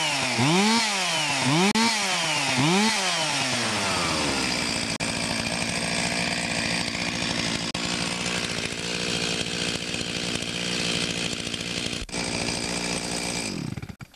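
Stihl MS 361 two-stroke chainsaw revved three times in quick blips, then falling back to a steady idle, and stopping near the end. With its new ignition module it revs up to full speed freely, no longer held back by the faulty rev limiter in the old coil.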